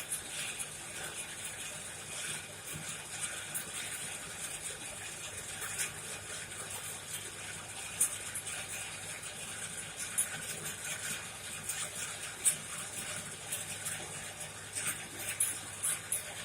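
Coal forge fire burning with a steady rush of air, scattered with sharp crackles and pops.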